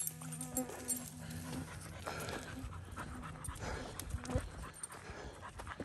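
Steady rhythmic panting, with scattered footfalls and snaps on the forest floor.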